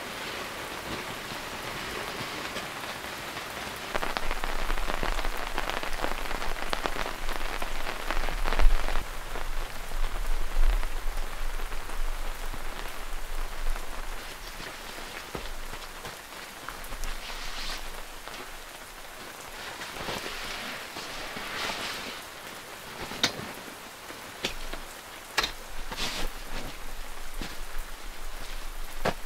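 Rain pattering on a tent canopy, with a louder stretch of rumbling noise about four to twelve seconds in and scattered sharp drip-like taps near the end.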